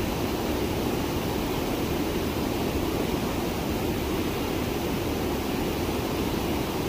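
Steady rush of stream water flowing over rocks, an even unbroken noise.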